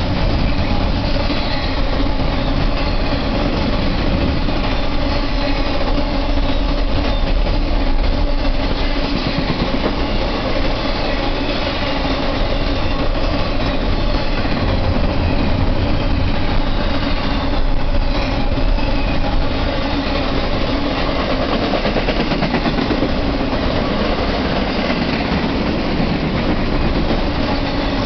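Intermodal freight train's cars rolling steadily past at close range: steel wheels clattering along the rails in a loud, continuous rush of noise.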